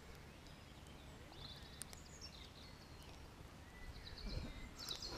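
Faint outdoor ambience: distant birds singing in short high trills over a low steady rumble, with a few soft knocks near the end.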